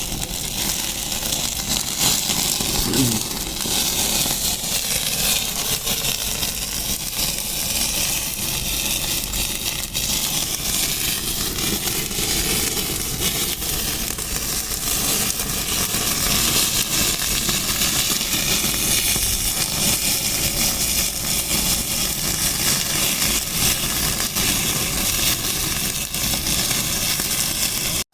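Wood fire crackling under a steady sizzling hiss of tandoori chicken cooking over a wood stove.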